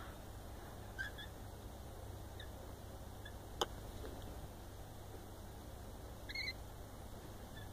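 Rainbow lorikeets giving a few short, faint chirps, one about a second in and a slightly longer call about two-thirds of the way through. A single sharp click about halfway through is the loudest sound.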